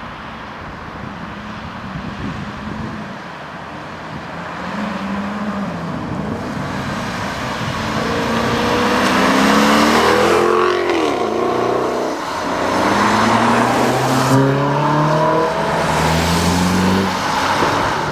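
V8 sports car accelerating hard, the engine note climbing through the revs and dropping back at each upshift, several times in a row. It is loudest around the middle and again near the end, where the pitch steps up gear after gear.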